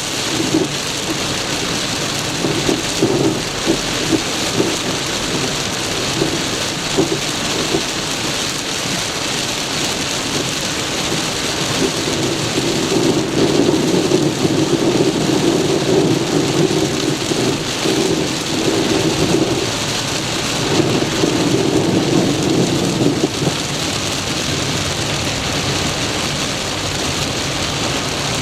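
Torrential rain drumming on a car's roof and windscreen, heard from inside the car as a dense, steady hiss with small sharp patters. A deeper rumble swells from about twelve seconds in and again just after twenty seconds.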